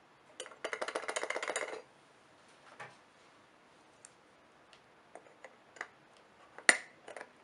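Small metal clicks and taps from an old box camera being worked with a hand tool. A quick rattle of clicks starts about half a second in and lasts about a second, then come scattered single clicks, the loudest near the end.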